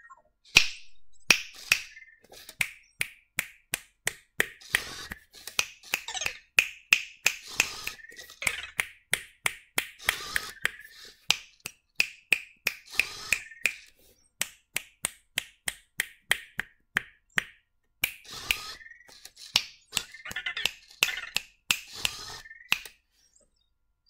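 A person's fingers snapping over and over, about two to three snaps a second, with a couple of short pauses midway.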